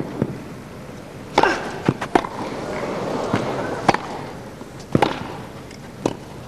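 Tennis ball struck by rackets in a grass-court rally: a string of sharp pops from racket hits and ball bounces, roughly a second apart, over a low crowd murmur that swells slightly mid-rally.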